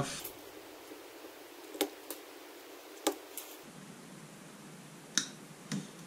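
Pliers stripping the insulation off electrical cable cores: a few sharp clicks and snips, mostly in close pairs.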